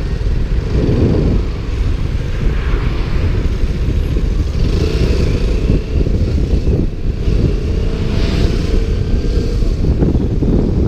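KTM Duke motorcycle running on the move, heard through heavy wind noise on a GoPro's stock microphone in its waterproof case.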